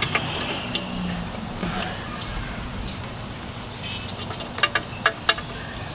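Small metal clicks of needle-nose pliers working at a retaining clip inside a Turbo 400 transmission's case: one about a second in, then a quick run of four near the end, over a steady hiss.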